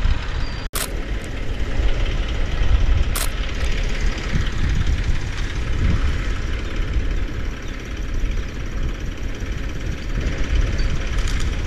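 Vehicle engine running steadily, a low rumble. There is a sharp click about a second in and another about three seconds in.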